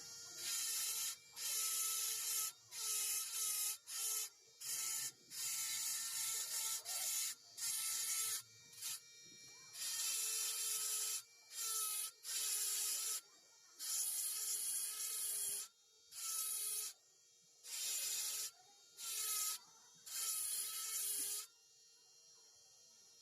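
Wood being filed by hand with a rasp, in repeated irregular scraping strokes about one a second, pausing briefly near the end.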